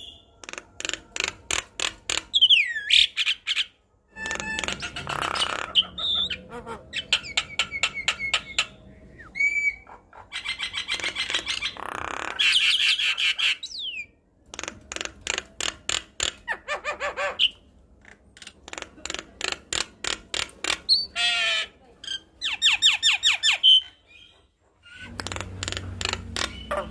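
Javan myna (jalak kebo) singing in full song: phrases of rapid harsh clicks and rattles mixed with short gliding whistles, broken by brief pauses.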